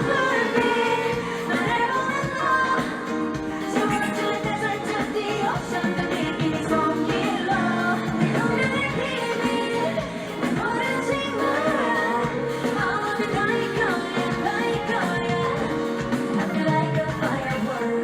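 K-pop girl group singing a pop song live over its backing track, the music playing steadily throughout.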